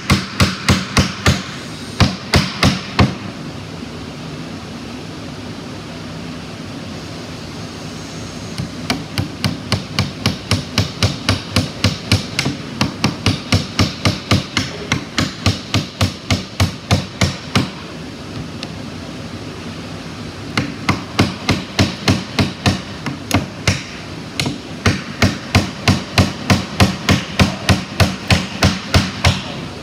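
Claw hammer driving 2-inch nails into wooden boards: quick, steady strikes about two to three a second, in three runs broken by pauses of a few seconds. A steady low hum runs underneath.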